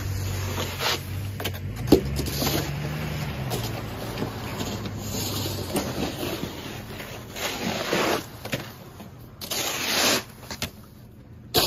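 Low hum of a plow truck's engine for about the first half, then scattered scrapes in snow and slush.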